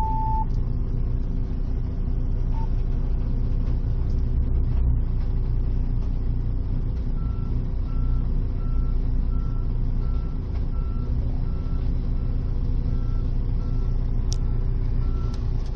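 Heavy diesel engines of a Liebherr L 566 wheel loader and the machine it is filmed from, running steadily and heard through a cab window. From about halfway in, a reversing alarm beeps steadily at an even pace.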